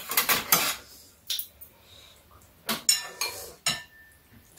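Metal spoons and chopsticks clinking and scraping against bowls and plates: a quick clatter at the start, then a few separate clinks, one ringing on briefly.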